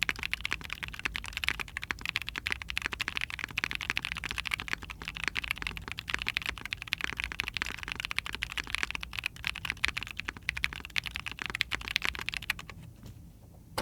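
Fast, continuous typing on a mechanical keyboard with Tecsee Ice Milk tactile switches in a POM plate, under GMK keycaps. The typing stops about a second before the end.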